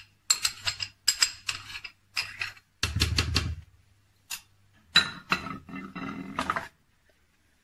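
Metal spoon scraping and tapping against a bowl and the rim of a mixing jar in quick runs of clicks, with a duller knock about three seconds in. The spoon is scraping out melted butter.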